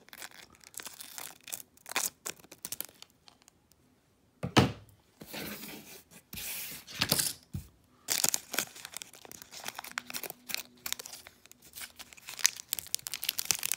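Foil Pokémon booster pack wrapper crinkling and crackling as it is handled and worked open, in irregular bursts with short pauses. A sharp crackle comes about four and a half seconds in, and the crinkling runs almost without a break through the last six seconds.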